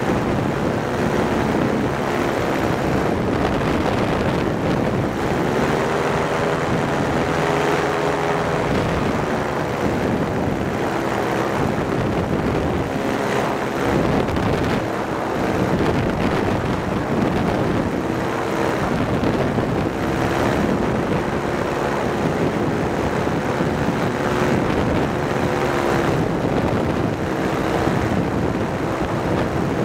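Powered parachute's engine and propeller running in flight, its pitch sagging and rising in slow swells several times as the throttle is worked, under heavy wind noise on the microphone.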